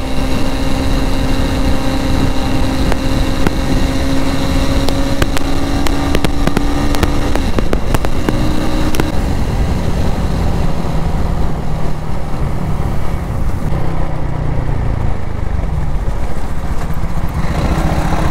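Motorcycle engine running while riding, over a steady rushing noise. The engine note climbs slowly for the first several seconds, drops about halfway through, then runs at a lower pitch.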